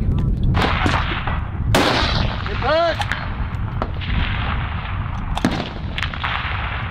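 Rifle gunfire: several sharp shots a second or more apart, over a steady rushing noise.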